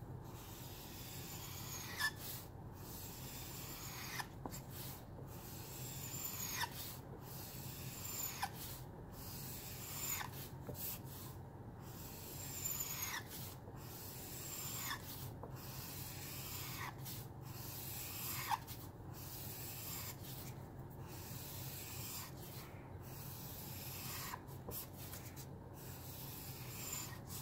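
Caliart alcohol marker's felt nib dragged over paper in repeated long strokes, about one a second, a dry scratchy rubbing with a short squeak falling in pitch at the end of many strokes. The marker is starting to run out of ink.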